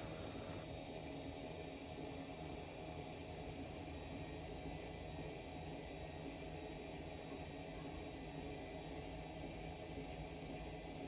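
Electric pottery wheel running steadily: a constant high-pitched whine over a low motor hum.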